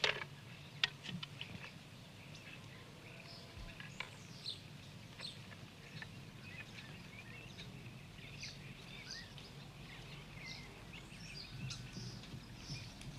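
Small birds chirping and twittering, with a steady low hum underneath. A few sharp clicks come in the first second.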